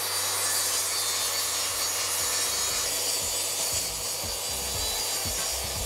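Plunge-cut track saw running along its guide rail and cutting across the slats of a tambour door. It starts abruptly, then holds a steady, high-pitched cutting noise over the motor's hum.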